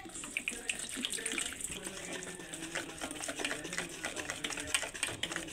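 Wire whisk beating flour and water into a wet batter in a plastic bowl: a quick, irregular run of wet squelching and light clicks of the whisk against the bowl.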